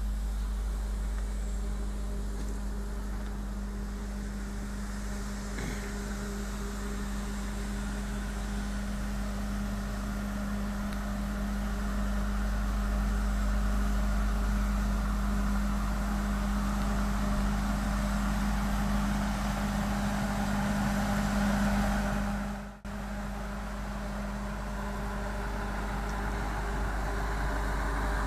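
Steady hum and hiss of a heritage steam train standing at the platform, with steam drifting from its 0-6-0 pannier tank engine. The hiss grows louder about halfway through, and the sound briefly cuts out near the end.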